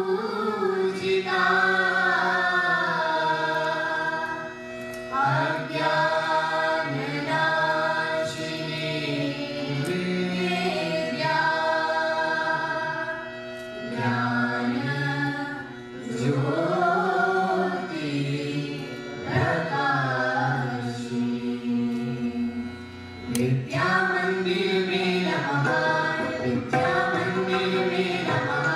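Background music with singing, in long held phrases broken by short pauses.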